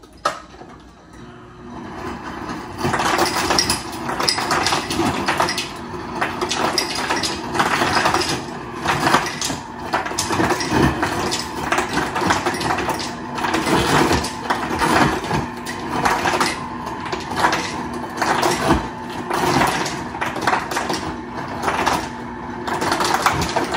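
Refrigerator door ice dispenser running: a steady motor hum with ice cubes clattering continuously into a glass, starting about two seconds in.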